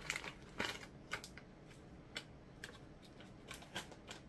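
Faint crinkling of a plastic snack packet being handled, a cluster of crackles in the first second, then a few scattered light ticks.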